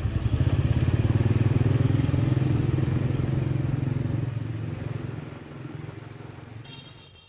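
Motorbike engine running as it rides along, its pitch rising a little about a second in; the sound fades out over the last few seconds.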